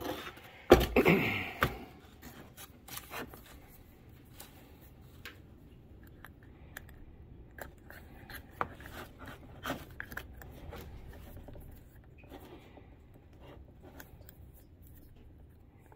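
Handling noise from a leather axe mask being pushed onto the axe head and its strap and buckle worked: a cluster of loud knocks and rubbing about a second in, then scattered light clicks and rustling.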